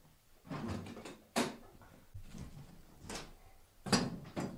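Cast-iron wood-burning stove being stoked: a handful of sharp metal knocks and clanks as the firebox door is opened and wood is pushed into the fire, the sharpest about a second and a half in and again about four seconds in.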